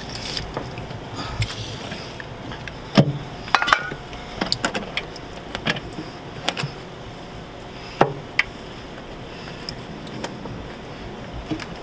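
Scattered metallic clicks and knocks of a screwdriver and metal parts as a hose clamp on a diesel engine is worked loose by hand, with two sharper knocks about three and eight seconds in.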